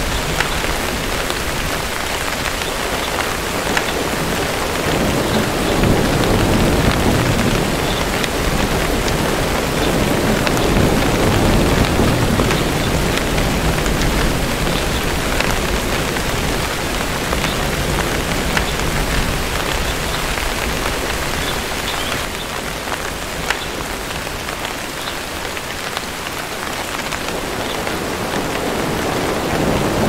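Steady rain with scattered drop ticks, and low rumbles of distant thunder swelling and fading a couple of times in the first half and again near the end.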